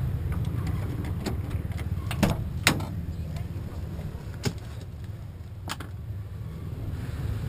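Key unlocking a van's door and the door being opened: a few sharp clicks and clunks, the loudest about two and a half seconds in, over a steady low rumble.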